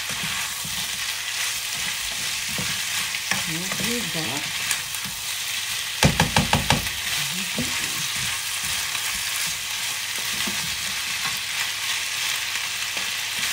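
Chicken feet sizzling as they are stir-fried in a nonstick wok, with a spatula stirring and scraping through them. About six seconds in, five quick knocks, most likely the spatula tapped against the pan.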